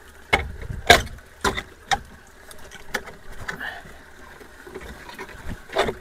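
Long-handled metal-tined rake scraping and splashing through wet leaves and debris in shallow water, several sharp strokes in the first two seconds and another near the end, clearing a clogged culvert inlet. Water trickles steadily underneath.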